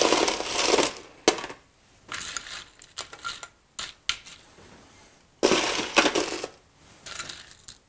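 Crushed ice tipped from a metal scoop into a glass tumbler in two main pours, one at the start and one about two-thirds of the way in, with scattered clinks of ice on glass and metal between.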